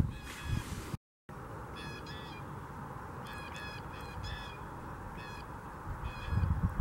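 Blue jays calling: short, harsh calls given in small clusters, repeated every second or so, over a steady background hiss. The sound cuts out briefly about a second in, and there are a few low thumps near the end.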